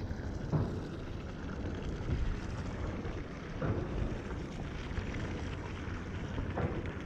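Wind buffeting the microphone, a steady low rumble, with three brief louder gusts or swishes about three seconds apart.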